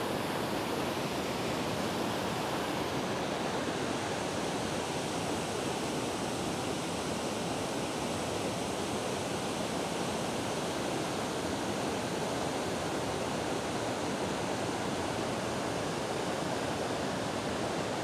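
Waterfall and rapids rushing over rock ledges: a steady, even rush of white water that does not change.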